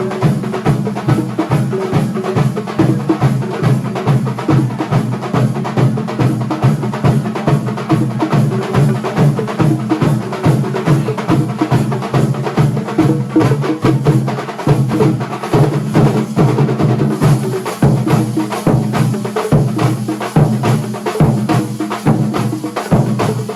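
Kerala thambolam percussion band playing a fast, driving drum rhythm of dense, rapid strokes over a steady low tone.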